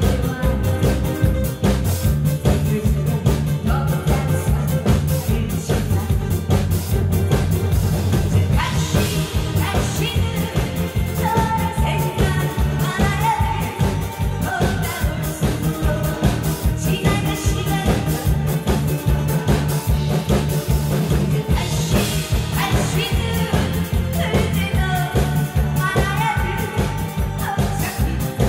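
A woman singing into a microphone over a loud backing track with a steady beat.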